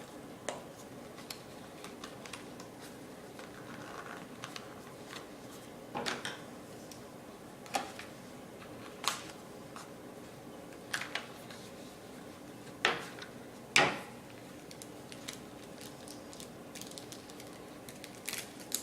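Packaging of an iPod Touch case being opened and handled: scattered sharp clicks, taps and crackles, with two louder snaps about two-thirds of the way through.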